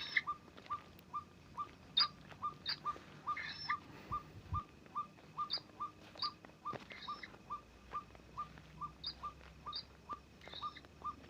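Night-time calls: a short whistled note repeated very evenly, about three times a second, with scattered sharper, higher chirps over it.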